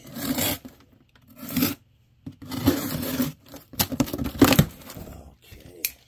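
A Milwaukee folding utility knife slicing through the packing tape along a cardboard box, then the box flaps being pulled open with tearing and scraping of cardboard. It comes as several rasping strokes, with a couple of sharp clicks.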